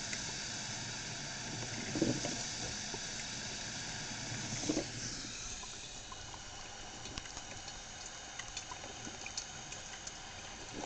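Black & Decker thermal carafe drip coffee maker heating and pumping plain water through its brew cycle: a steady hiss of bubbling water with a couple of louder gurgles about 2 and 5 seconds in, settling quieter after about 6 seconds.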